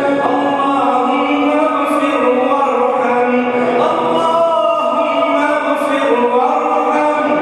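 A male voice chanting an Arabic du'a (supplication) in long, held melodic phrases that slide between notes, carried over the mosque's microphone.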